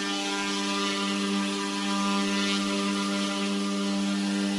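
Electric motor and rotor of an OMPHOBBY M2 Explore RC helicopter, a steady whining hum at one pitch as it hovers and touches down on a box.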